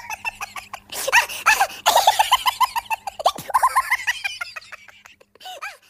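High-pitched cackling in fast runs of short rising-and-falling calls, about six a second, broken off briefly about one and two seconds in and fading near the end.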